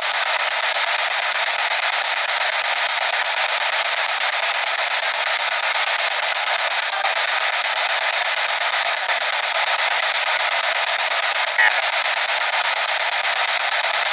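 P-SB7 spirit box sweeping through the radio band, giving a steady hiss of static from its small speaker, with one brief snatch of sound about eleven and a half seconds in.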